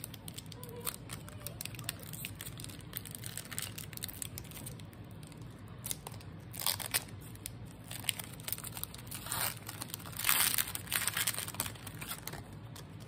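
Foil wrapper of a Pokémon booster pack being torn open and crinkled in the hands, a run of small crackles with a few louder crinkling stretches, the loudest about ten seconds in.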